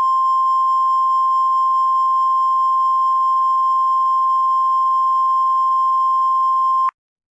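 NOAA Weather Radio warning alarm tone: one steady, high, pure beep held for several seconds that cuts off abruptly near the end, announcing the weather warning that follows.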